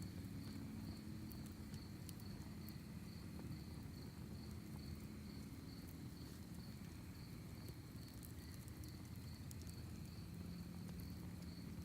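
Crickets chirping steadily, a high pulsed note about three times a second, over a wood campfire's soft crackle with scattered small pops. A steady low rumble sits underneath.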